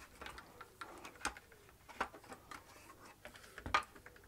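Scattered clicks and light knocks of a Caldwell G2 chronograph's plastic end housings and metal rods being handled and taken apart by hand, the sharpest knock near the end.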